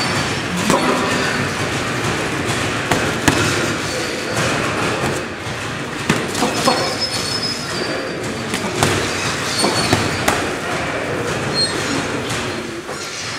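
Boxing gloves landing in irregular punches during sparring, a handful of sharp slaps standing out over steady background noise.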